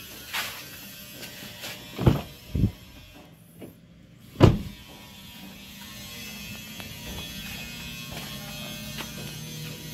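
A few sharp knocks and clunks: one near the start, two close together about two seconds in, and the loudest about four and a half seconds in. A low steady hum follows.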